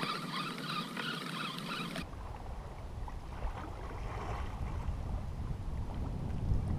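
Rain pattering on the plastic bag over the camera. After about two seconds it cuts abruptly to a steady low rumble of wind on the microphone, with water lapping against the kayak as it drifts.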